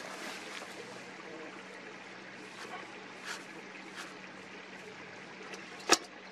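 Hinged metal lid of a bellows bee smoker snapped shut with a single sharp clank near the end. A faint steady hiss and a few light ticks come before it.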